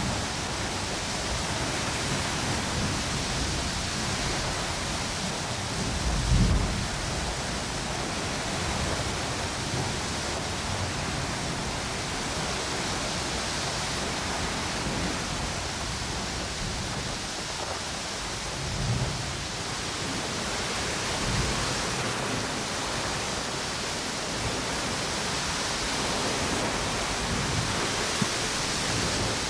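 Steady rush of ocean waves and storm wind hissing through palm trees, with a few brief low rumbling gusts, the strongest about six seconds in.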